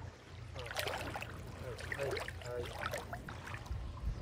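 Shallow seawater trickling at the shoreline over a steady low rumble, with short stretches of people's voices in the background.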